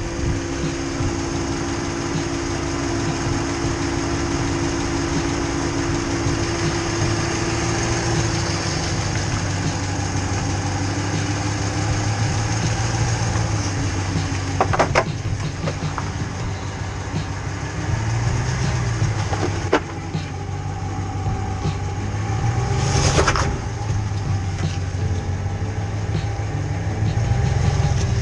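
Full-size Ram pickup's engine running at a low, slowly varying crawl speed while working over an off-road obstacle, with a few sharp knocks and a brief harsh noise about 23 seconds in.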